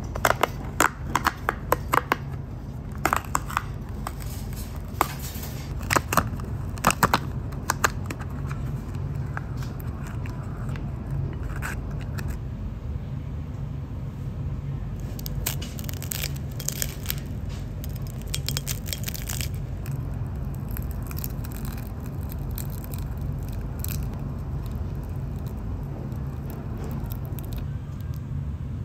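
Pink paperboard pie-style sleeve torn open along its perforated pull tab: a quick run of sharp rips and crackles over the first eight seconds, then scattered fainter crackles, over a steady low room hum.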